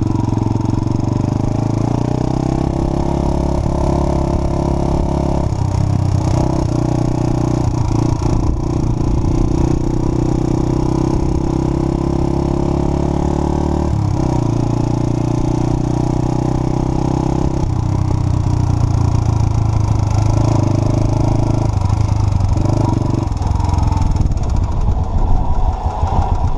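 Straight-piped single-cylinder engine of a 2007 Suzuki GZ250 motorcycle running under way. The engine note holds steady for several seconds at a time, then steps to a new pitch a few times as the throttle changes.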